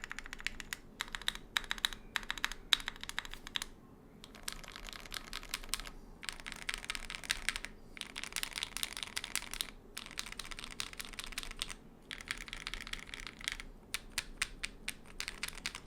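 Fast typing on a Keychron Q1 aluminium-case custom mechanical keyboard fitted with Akko Rose Red switches: rapid runs of keystroke clacks with brief pauses between bursts.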